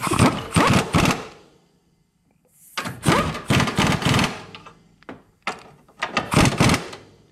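Impact wrench hammering in three bursts of one to two seconds, with short pauses between, as it runs down and tightens the body-side bolts of an engine mount.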